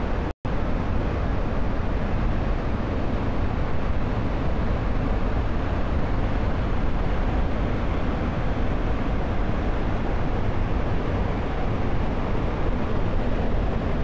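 Steady roar of a large waterfall in flood, heavy in the low end, with no change in its rush. It cuts out for an instant about half a second in.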